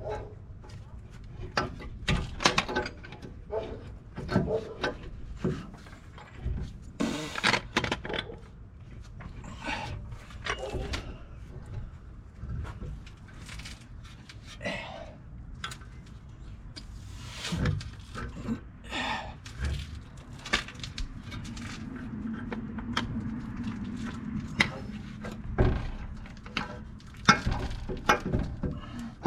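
Hand tools and metal parts clinking, tapping and knocking in irregular bursts during disassembly of a pickup's front axle and 4WD actuator.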